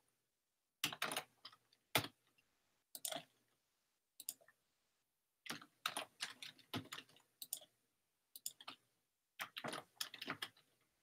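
Computer keyboard keys and mouse buttons clicking in scattered, irregular clusters, with silence between strokes.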